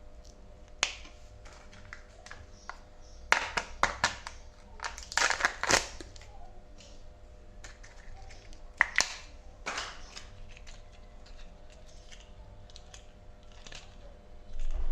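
Kinder Joy eggs being handled and opened: the foil wrappers crinkle and the plastic capsules click, in scattered short bursts. The bursts are loudest between about three and six seconds in and again around nine to ten seconds.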